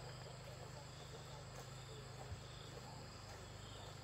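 Faint, steady chirring of crickets and other insects over a low steady hum, with one soft thump a little past halfway.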